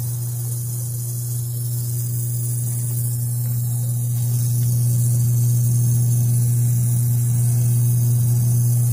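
Insignia 37-inch LCD television humming loudly and steadily from inside its case, getting louder about four seconds in. The owner suspects a failing capacitor.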